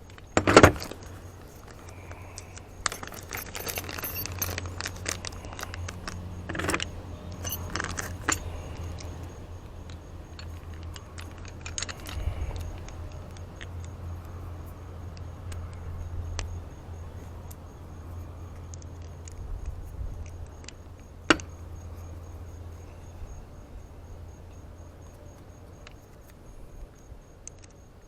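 Small metal tools and hardware clinking and tapping while an Allen wrench is used on a hood latch's locking mechanism: scattered sharp clicks, the loudest about half a second in, a cluster a few seconds in and a single one near the end, over a steady low hum.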